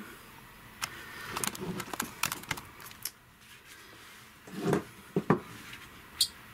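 Handling noise while the camera is repositioned: scattered light clicks and taps, two duller knocks about five seconds in, and a sharp click near the end.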